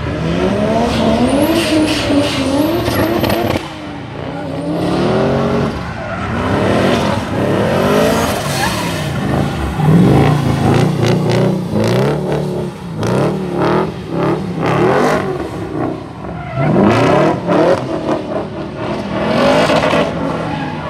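Drift cars, a Volvo 240 estate among them, revving hard, the engine pitch rising and falling every second or so as they hold slides, with tyres squealing on the tarmac.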